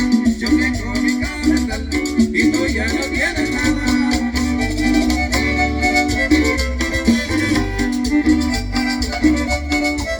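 A chanchona ensemble playing an instrumental passage of Salvadoran cumbia-style dance music: a steady upright-bass beat under melody instruments, with a shaker keeping the rhythm.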